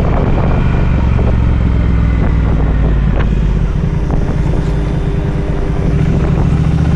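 Triumph Speed Twin 1200's parallel-twin engine running steadily while riding, with wind noise on the microphone.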